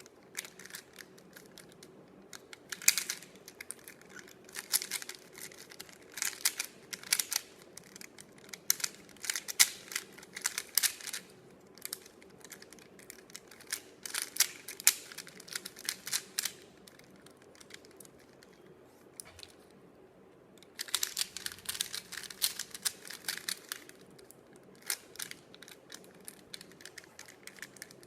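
Rubik's Cube being turned by hand: quick plastic clicking and clacking of the layers in irregular bursts, with a short lull about two-thirds through followed by a dense flurry of turns.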